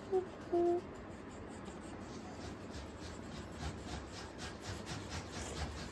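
Coloured pencil scribbling back and forth on paper, colouring in with quick repeated strokes that grow steady from about two seconds in.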